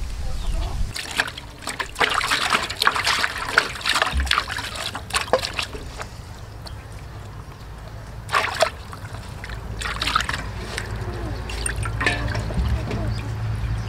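Water sloshing and splashing in a metal basin as a raw, opened duck carcass is washed by hand, in uneven bursts, with water trickling and dripping off as the bird is lifted.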